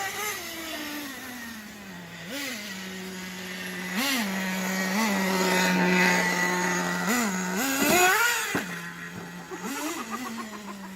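Small nitro RC car engine idling steadily, with a series of short throttle blips that briefly raise its pitch, the biggest one about eight seconds in.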